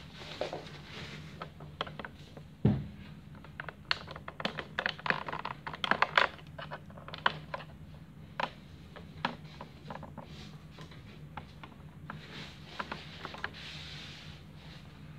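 Handling noise from a painting board being tilted and a paper tissue dabbed on it: a run of small clicks, taps and rustles, thickest in the middle, with one loud thump about three seconds in. A steady low hum runs underneath.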